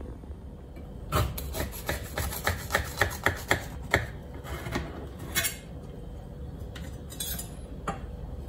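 A large kitchen knife sawing through a baked brownie with a crisp top, the blade rasping against the ceramic baking dish. A quick run of strokes, about five a second, runs from about one second in to about four seconds in, followed by a few single scrapes.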